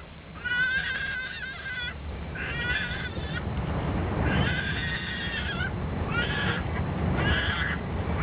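An infant crying in a run of separate wails, each about half a second to a second long, over the steady low rumble of an Airbus A380 cabin.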